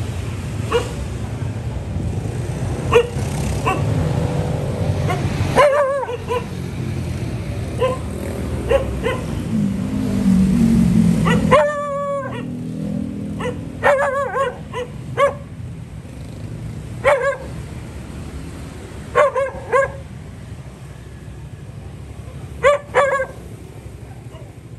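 Dog barking in short, separate barks, about a dozen spread out, some in quick pairs. A steady low rumble lies under the barks in the first half and stops suddenly about halfway through.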